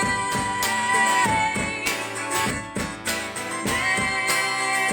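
Live folk-pop song: strummed acoustic guitar under sung vocal harmonies, with a long note held on one word of the line.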